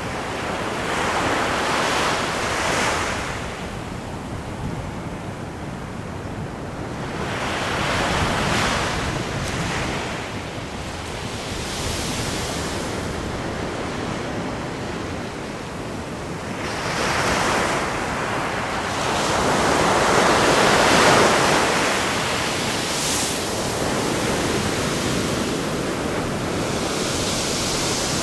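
Ocean surf breaking on a beach, the wash swelling and fading in several waves, the biggest about twenty seconds in.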